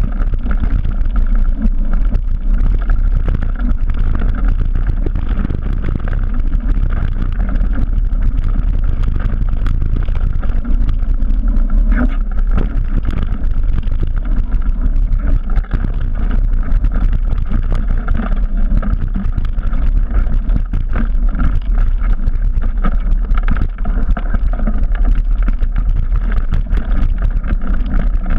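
Wind buffeting the camera microphone over the rattle and knocks of a full-suspension mountain bike riding fast downhill on a rough dirt singletrack, its tyres rolling over dirt and roots.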